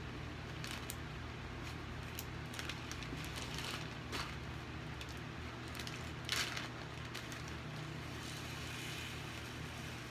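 Steady low hum with scattered light clicks and rustles of plastic craft-supply containers and bags being handled, the loudest click about six seconds in.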